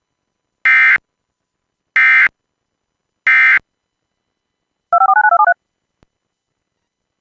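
Emergency Alert System end-of-message signal: three short, loud bursts of SAME digital data tones, each about a third of a second long and about a second apart. About a second after the last burst comes a rapid string of touch-tone (DTMF) beeps lasting under a second.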